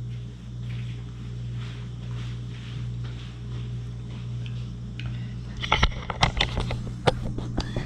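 A steady low electrical-sounding hum, joined about two-thirds of the way in by a quick run of clicks and knocks, like something being handled close to the microphone.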